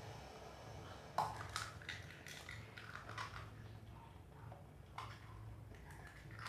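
Cooking utensils and dishes being handled: a sharp knock about a second in, a run of small clicks and clatter after it, and another knock near five seconds, over a low steady hum.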